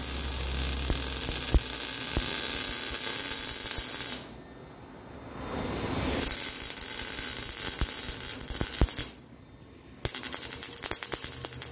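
Arc welding on rusty steel exhaust pipe: the arc crackles and hisses in two long beads, each stopping abruptly, then in a rapid stutter of short tacks near the end.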